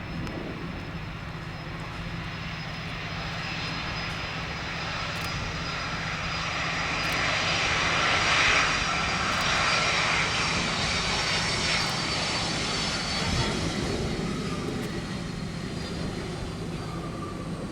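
Boeing 767-300 jet airliner's twin turbofan engines passing on landing: a roar with a high whine that builds to its loudest about halfway through, then slowly fades.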